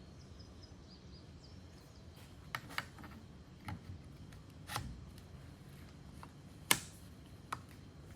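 A few scattered sharp clicks and knocks from objects being handled and set down, with one louder knock about two-thirds of the way in, over a low steady room hum.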